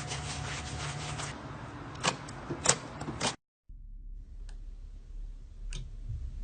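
Slime being squeezed and poked, making crackling clicks and a few sharp pops. The sound drops out briefly just past halfway, then resumes more quietly with occasional clicks.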